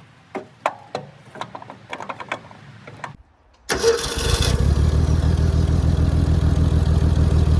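A few scattered clicks and knocks, then the 1975 drill rig's engine cranks on a newly fitted starter. It catches within about a second and settles into a steady, even running rhythm, firing right up with no choke.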